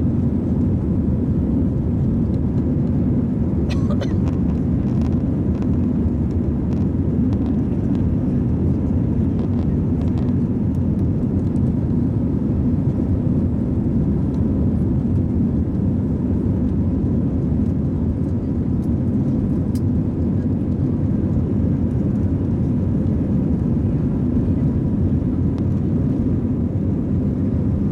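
Steady low cabin noise of an airliner climbing after takeoff: engine and rushing-air noise heard from inside the passenger cabin at a window seat, even and unbroken throughout.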